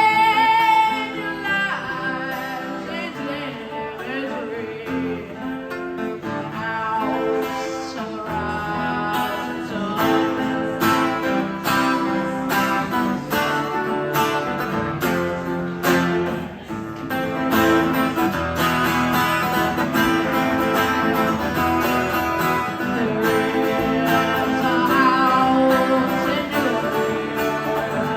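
Song performed on acoustic guitar, chords strummed or picked in a steady rhythm, with a singing voice over them.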